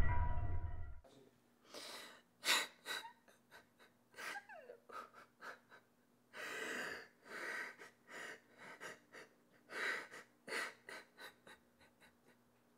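A loud low rumble cuts off about a second in. After it a person gasps and breathes in short, irregularly spaced breaths with pauses between them.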